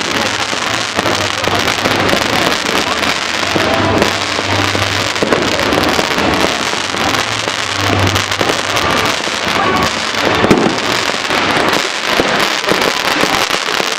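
Fireworks going off in a dense, continuous barrage of crackling and popping, with music playing underneath.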